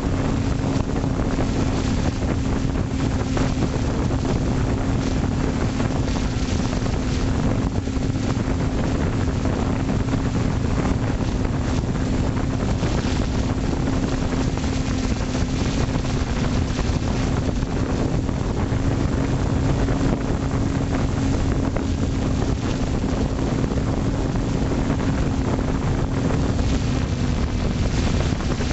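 A multirotor drone's motors and propellers running steadily at one unchanging pitch, picked up by the camera on board, with wind rushing over the microphone.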